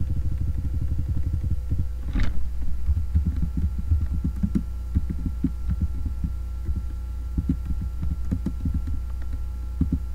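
Computer keyboard being typed on in quick runs of keystrokes, heard as dull low thumps over a steady electrical hum.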